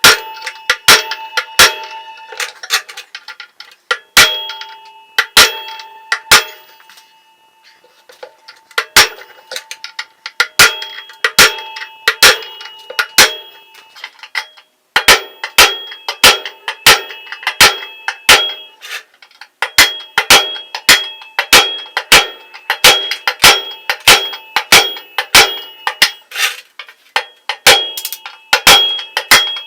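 A series of sharp metal-on-metal hammer blows, about one or two a second, each with a brief ringing tone, pausing briefly about seven and fourteen seconds in.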